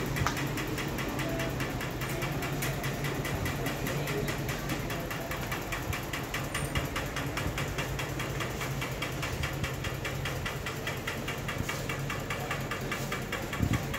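Steady mechanical drone with a low hum and a fast, even pulse, like a running motor or engine.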